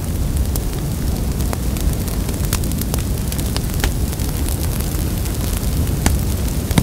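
Steady low rumbling noise with scattered faint clicks.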